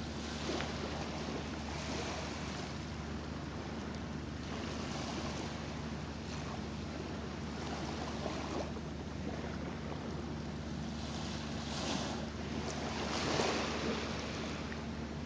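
Small waves washing onto a sandy shore, rising and falling every couple of seconds, over a steady low hum.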